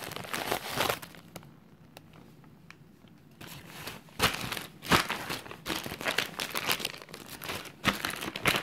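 Package wrapping crinkling and rustling as it is handled and pulled open, in irregular bursts with a quieter pause of about two seconds shortly after the start.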